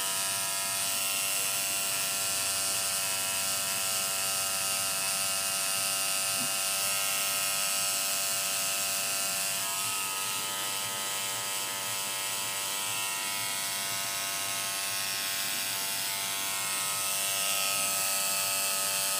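Tattoo machine buzzing steadily while the needle works ink into the skin of a wrist, with a slight shift in pitch about ten seconds in.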